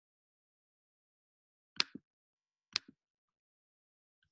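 Two computer mouse clicks about a second apart, each a sharp press followed quickly by a softer release, against near silence.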